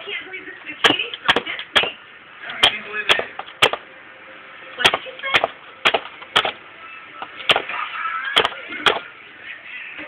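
Pet parrot–lory mix at play: sharp, irregular clicks and taps, about fifteen in ten seconds, over a faint background of voices.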